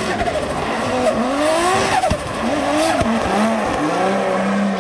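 2JZ-swapped Toyota GR Yaris drift car's straight-six engine revving up and down through a drift, with sharp cracks from its anti-lag system a few times and tyre noise underneath.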